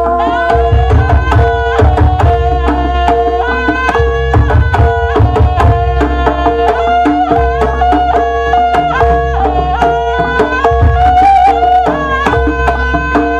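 Live jaranan gamelan music: hand drums (kendang) and gongs beat under a reed shawm (slompret) playing a stepping melody, with a steady held note running beneath.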